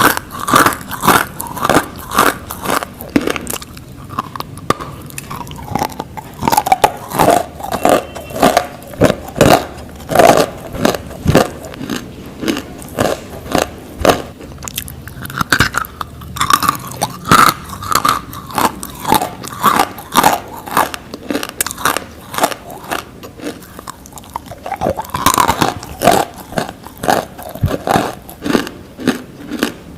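Nakumatt edible clay being bitten and chewed close to the microphone: a steady run of crisp, dry crunches, several a second, with short pauses between bites.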